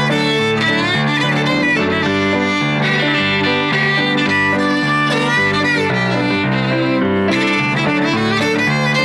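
Instrumental break in a country song: a fiddle plays the lead melody over piano accompaniment.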